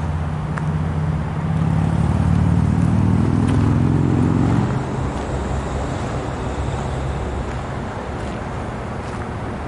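GE B23-7 diesel-electric locomotive's 12-cylinder engine running with a low pitched rumble that swells louder about a second and a half in and drops back about halfway through.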